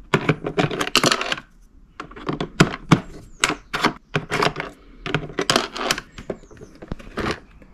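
A screwdriver working the plastic hinge pins out of a Smart Fortwo 451 glovebox lid: rapid runs of hard plastic clicks, knocks and rattles, coming in clusters and ending a little before the close.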